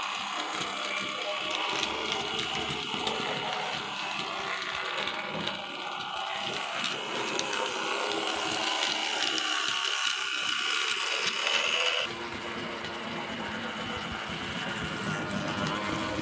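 Hornby OO-gauge model steam locomotive and its train running on the layout's track: a small electric motor whirring, with wheels rattling over the rails. A higher whine joins about halfway through and cuts off suddenly about twelve seconds in, where the sound turns quieter.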